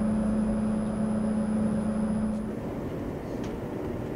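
Steady machinery hum and rumble of a large industrial test hall. A low steady tone in it cuts off about two and a half seconds in, leaving a slightly different steady rumble.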